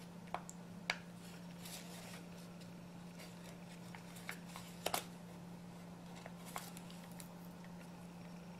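Pen drawing lines on notebook paper: faint scratching strokes with several sharp clicks and taps, the loudest a quick double click about five seconds in, over a steady low hum.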